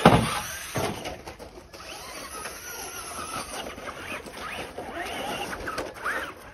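RC truck's motor whining up to speed, then a loud thump as the truck lands off the ramp, with a smaller knock just under a second later. The motor then keeps whining up and down in pitch with the throttle as the truck drives around.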